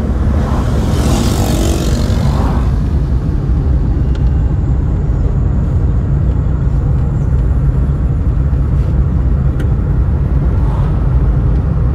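Steady low road and engine rumble inside a moving car's cabin. A brief rush of noise in the first couple of seconds as oncoming traffic passes.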